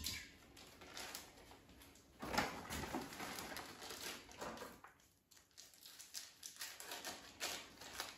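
Plastic wrappers of frozen tilapia fillets crinkling in scattered bursts as they are torn and cut open, with a few small clicks and knocks of handling.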